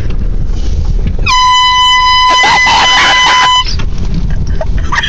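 An air horn blasts once, a single steady high-pitched tone held for about two seconds, starting about a second in and cutting off suddenly, over the low rumble of a vehicle engine.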